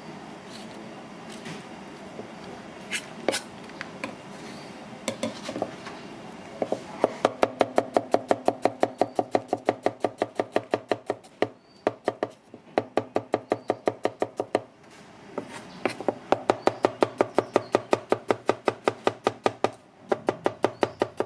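Large kitchen knife slicing shallots on a plastic cutting board. A few scattered taps at first, then a fast, even run of strokes, about four or five a second, broken by a few short pauses.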